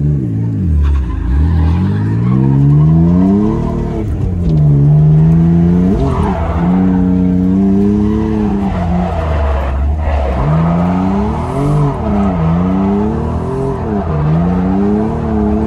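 Mitsubishi 3000GT drift car's engine heard from inside the cabin during a drift, its revs repeatedly climbing and falling back on and off the throttle, with tires squealing.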